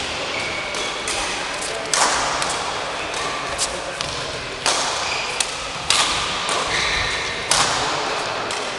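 Badminton rackets striking a shuttlecock during a rally: four sharp hits a second or two apart, with a few lighter clicks between, each echoing briefly in the hall.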